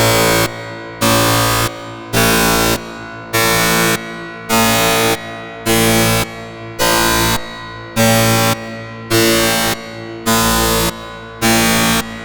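Electronic alarm: a harsh, buzzy tone blaring in half-second blasts about once a second, with a quieter tone sounding between the blasts.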